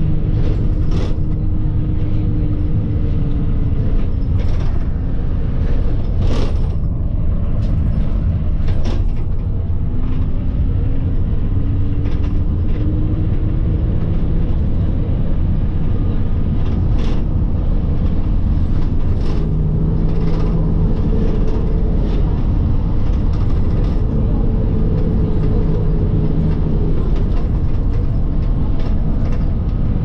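Bus engine running with heavy road rumble, heard from on board; the engine note slowly falls and climbs again as the bus changes speed, with a few sharp rattles or knocks scattered through.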